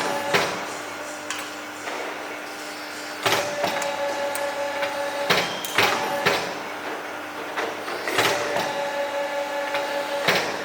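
CNC hydraulic tube bending machine running through its cycle. A steady hum is joined at intervals by a higher whine, and sharp clunks come every one to three seconds as the machine moves through its steps.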